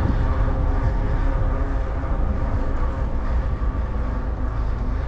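Steady low rumble with a faint droning hum, the wind and road noise picked up by a camera riding along on a bicycle.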